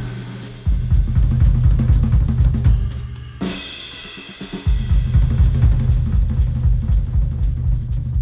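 Music played through Audio-Technica open-back studio headphones and picked up by microphones at the earcups: a drum-kit groove with heavy bass, kick, snare and hi-hat. About three and a half seconds in the beat drops out under a bright swell, and it comes back about a second later.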